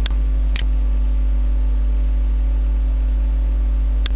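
Steady electrical mains hum with hiss in the recording, typical of a ground loop on a computer's microphone input, broken by a couple of brief clicks near the start and again near the end.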